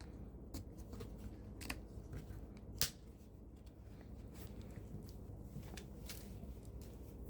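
Light scattered clicks and taps of small hard parts being handled, with one sharper click a little under three seconds in.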